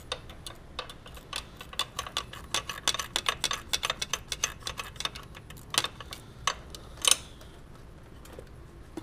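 Rapid, irregular clicking and ticking as the intake tube's hose clamp is loosened and the rubber intake tube is worked free, thinning out after about five seconds, with one sharper click about seven seconds in.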